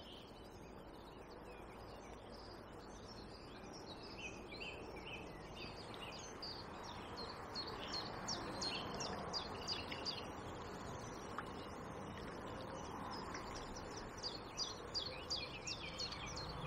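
Birdsong: many short, high chirps and calls, sparse at first and busier from about four seconds in, over a faint steady background noise.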